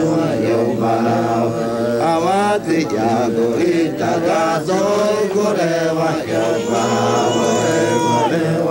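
Several voices chanting together over a steady low drone, the pitches sliding up and down. Near the end one voice holds a long high note that drops away at its close.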